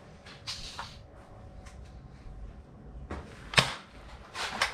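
Toy foam-dart blaster being handled and fired: light clicks and rustling, then one sharp snap about three and a half seconds in, followed by a few quicker clicks near the end.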